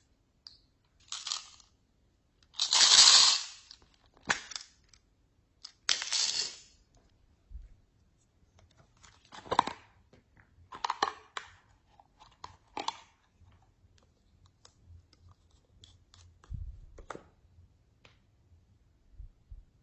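Slime being mixed and squished by hand: a series of short squishes, pops and clicks, the longest and loudest about three seconds in.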